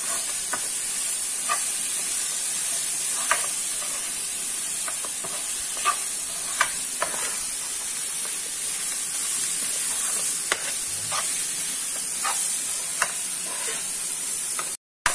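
Shredded vegetable filling sizzling as it is stir-fried in a nonstick frying pan, a spatula stirring through it with irregular light clicks and scrapes against the pan. The sound drops out for a moment near the end.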